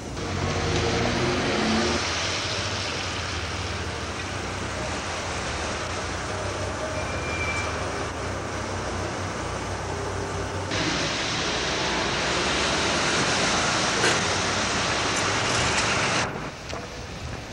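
Street traffic noise with a vehicle engine rising in pitch in the first couple of seconds over a steady low hum. The sound switches abruptly to a hissier rush about eleven seconds in and drops away suddenly near the end.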